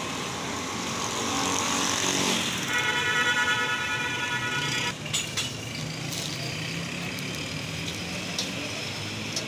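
Oil sizzling and hissing on a large flat iron tawa as parathas fry. About three seconds in, a vehicle horn sounds one steady note for about two seconds, and a few light clicks follow.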